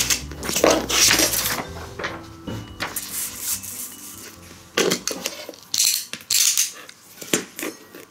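Irregular handling noises of a steel ruler and a utility knife being set out on a cutting mat: short scrapes and light metallic clinks, with pauses between them.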